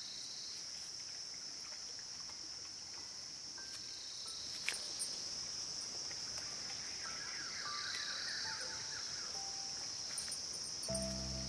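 A steady, high-pitched chorus of insects that swells and eases slowly, with two small clicks about halfway through.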